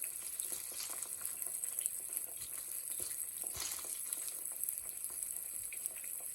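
Battered okra frying in a cast iron skillet full of oil: a steady, high sizzling hiss with scattered crackles and pops.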